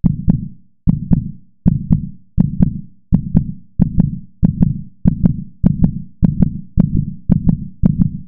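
Heartbeat sound effect: a deep double thump repeating steadily and speeding up, from about 75 to about 115 beats a minute.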